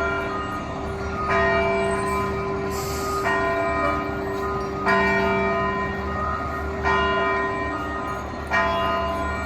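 A large bell struck in slow, even strokes, about one every two seconds, each ringing on until the next, with the strokes sounding at differing pitches. A steady low engine hum runs underneath.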